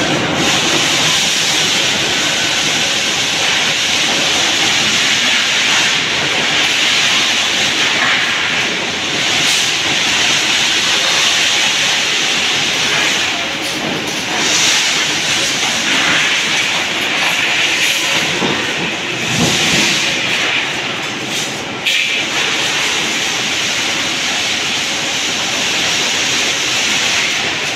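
Steel rolling mill machinery running with a loud, steady din and a constant hiss.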